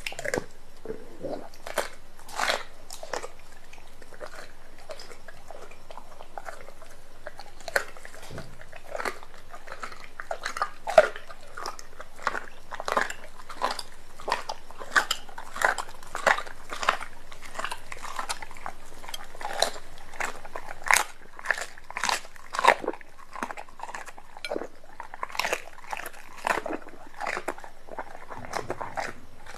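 A Doberman eating raw meat: irregular short clicks of its jaws and teeth as it bites and chews, coming several a second at the busiest, in the middle.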